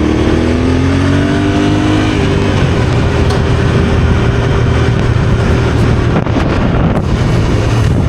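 Yamaha Ténéré adventure motorcycle engine running under way, its pitch rising for about two seconds, shifting about two seconds in, then holding steady, with constant wind rush over the microphone.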